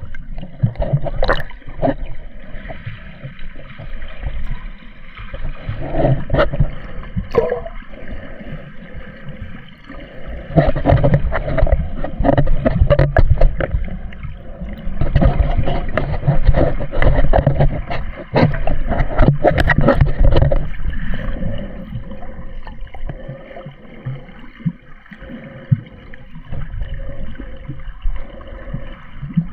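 Sea water sloshing and gurgling around a camera held in the water, muffled, with many small knocks and splashes. It gets louder for a few stretches in the middle.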